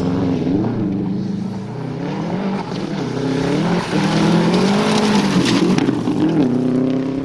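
Subaru Impreza WRX STI rally car's turbocharged flat-four engine revving hard on loose gravel, the pitch climbing and dropping again and again through gear changes and lifts. It is loudest past the middle as the car comes close.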